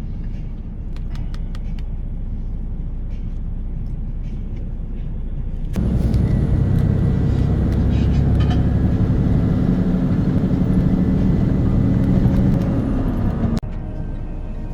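Steady low engine and road rumble heard inside a moving semi-truck's cab. It jumps suddenly louder, with a steady hum, about six seconds in and drops back just as suddenly near the end.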